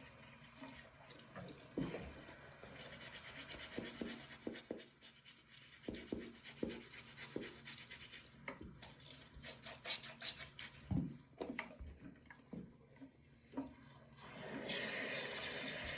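A sneaker being scrubbed with a brush in a bathroom sink: runs of quick, wet bristle strokes and irregular knocks as the shoe is moved against the basin. Near the end the tap comes on and water runs steadily.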